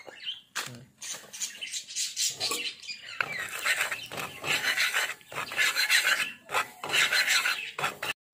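Steel spatula scraping and spreading spices frying in oil across an iron tawa, with the oil sizzling. The scraping comes in repeated strokes that grow busier from about three seconds in.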